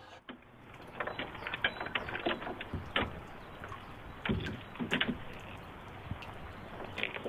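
Irregular clicks, clinks and knocks of climbing hardware and boots against an aerial-lift bucket as a man climbs out over its rim onto a rope, thickest in the first half with a few heavier knocks after.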